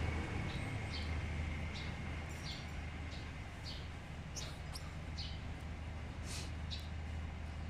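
Caged Gouldian finches giving short, high chirps, about two a second, over a steady low hum.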